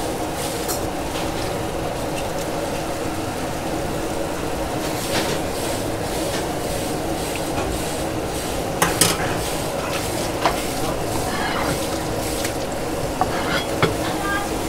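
Busy market din: a steady noise with a low hum, broken by a few sharp clatters in the second half.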